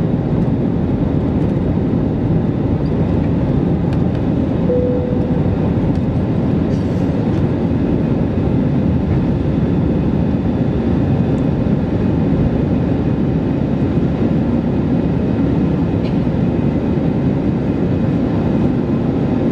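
Steady cabin drone of an Airbus A320-214 in flight, heard from a window seat over the wing: the hum of its CFM56 engines mixed with rushing airflow. A brief steady tone sounds once about five seconds in.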